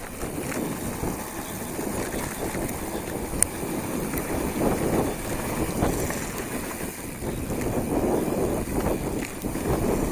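Wind noise on the camera microphone mixed with the rumble and rattle of a hardtail mountain bike's tyres rolling fast over loose, dusty dirt on a downhill trail, rising and falling in surges. One sharp click about three and a half seconds in.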